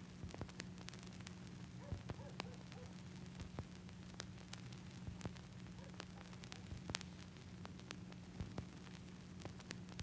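Faint steady low hum and hiss, with irregular crackling clicks about twice a second.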